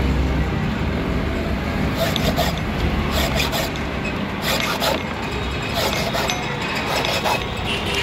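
Flat file scraping across the housing of a motorcycle ignition lock in short, irregular strokes that start about two seconds in, cutting a ramp into the housing to get the lock cylinder out. A steady low traffic rumble runs underneath.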